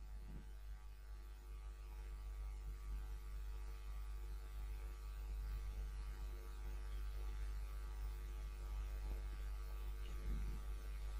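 Steady low electrical hum with a faint buzz of higher steady tones above it: mains hum in the recording chain.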